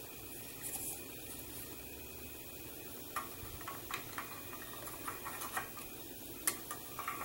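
Faint light clicks and taps of hard plastic model parts being handled and pressed together as a hinge cover panel is fitted to a scale model car's rear body assembly. The clicks are scattered, about a dozen over the last four seconds.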